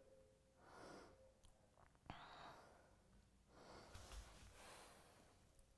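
Near silence with faint, slow breaths while a yoga pose is held, and a brief click about two seconds in.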